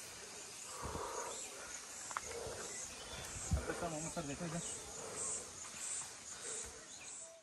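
Insects chirping in a high, regular pulse, about two a second, louder in the second half, over footsteps on a dirt trail and a brief voice in the middle.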